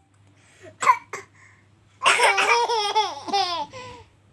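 Young child laughing, a run of short, high-pitched falling syllables, after two short breathy bursts about a second in.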